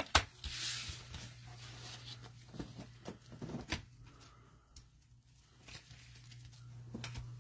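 Trading cards and card packaging being handled. A sharp knock comes at the start and a rustle through the first couple of seconds, then scattered light clicks and taps over a steady low hum.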